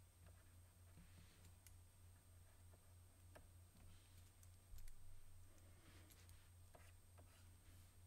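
Near silence: room tone with a steady low hum and faint scattered clicks from drawing at a computer, with one soft low thump a little before five seconds in.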